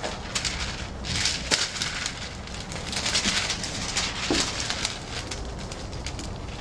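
Plastic release film crinkling and crackling as it is peeled back off a Resisto self-adhered membrane and the sticky sheet is pressed down, in two spells of rustling.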